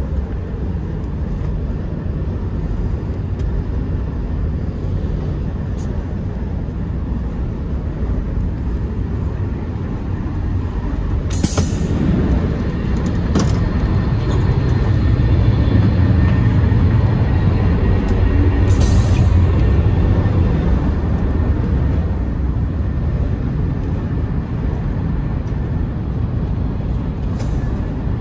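Running noise of a TGV Euroduplex at speed: a steady low rumble that gets louder for several seconds in the middle, as the gangway between carriages is crossed. Two short hisses, a few seconds apart, come from the automatic sliding doors between carriages.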